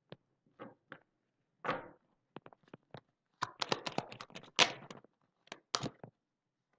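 A deck of oracle cards shuffled by hand: a few separate soft card clicks, then from about halfway a quick dense run of cards clicking against each other for about three seconds.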